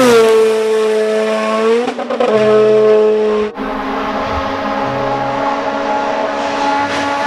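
Sports car engine sound running at high revs as one steady note, its pitch shifting about two seconds in and again a little later.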